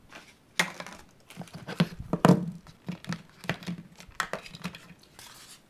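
Phone-box accessories and packaging being handled and set down on a table: crinkling of wrapping with a string of sharp clicks and taps, the loudest about two seconds in.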